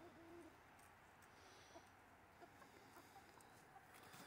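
Near silence with faint, occasional clucking from chickens feeding.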